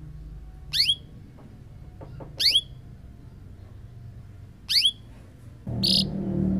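Canary giving three short call notes, each a quick downward-sweeping whistle, spaced about two seconds apart. Near the end a brief harsh rasp is heard and a low steady hum comes up underneath.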